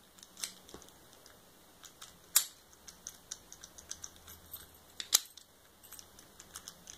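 Small metal clicks and ticks of lock picks and a tension wrench being worked in and against a lock, with two sharper clicks, one a couple of seconds in and one about five seconds in.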